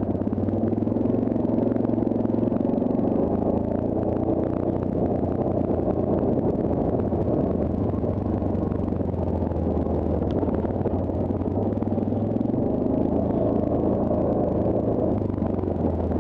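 Yamaha Grizzly ATV's single-cylinder four-stroke engine running steadily as the quad is ridden along a rough dirt trail, picked up by a rider-mounted microphone.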